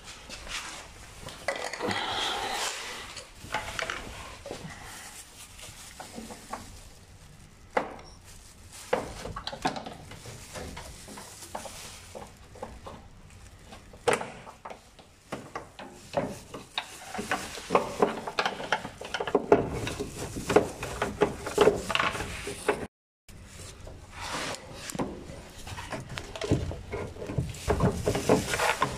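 Irregular clicking, scraping and rattling of hand work with a screwdriver on a car's fuel lines and plastic line clips, busier in the second half.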